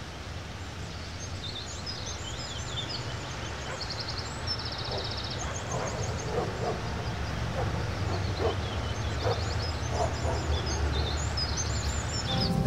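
Small birds chirping, with several rapid trills, over a steady low hum; the whole sound grows gradually louder.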